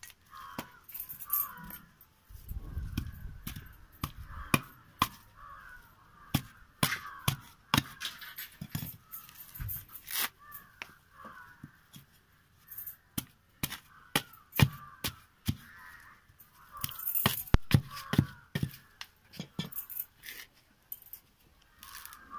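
A coconut being husked by hand with a ribbed iron bar: irregular sharp knocks and cracks as the bar strikes and pries the husk, and the rasp of fibres being torn away. Birds call repeatedly in the background.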